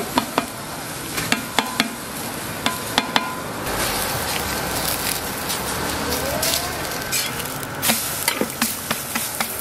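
Shredded old-pumpkin pancake batter sizzling in oil on a hot griddle. It is punctuated by sharp slaps of a gloved hand patting it flat, several in the first three seconds and again near the end.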